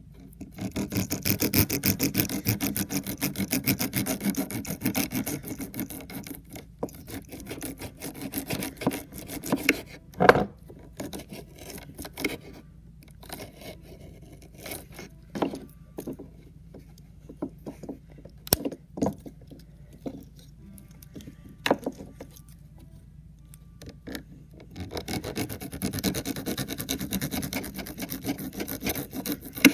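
Pocket-knife blade rasping quickly back and forth across a crumbly blue block, shaving off crumbs. There are two long spells of fast, even strokes, one at the start and one near the end, with scattered single scrapes and light taps in between.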